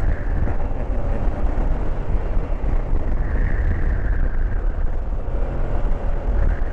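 Motorcycle on the move: a steady, loud rush of wind buffeting the microphone over the running engine and road noise.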